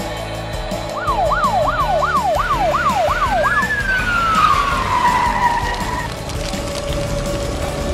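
Toy fire truck's electronic siren: a quick rising yelp repeated about seven times, then one long falling wail, then a steady single tone, over background music.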